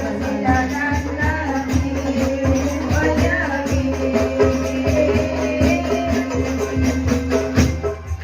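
Music with a fast, steady percussion beat under a held low note and a moving melody line.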